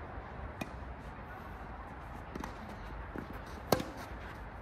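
Tennis ball impacts during play: a light knock about half a second in, a couple of soft knocks later, and one loud, sharp racket-on-ball crack shortly before the end, over a steady background hiss.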